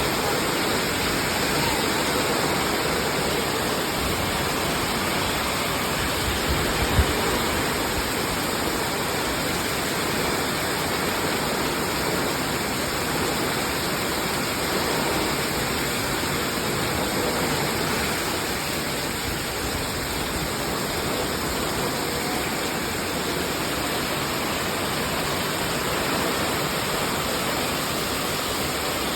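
Heavy rain in a windstorm: a steady, dense hiss of falling rain, with one brief low thump about seven seconds in.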